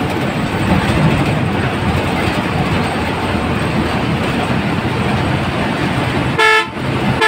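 Steady engine and road noise of a moving bus, heard from inside the cabin, then near the end a loud, short horn blast, with a second one starting just after.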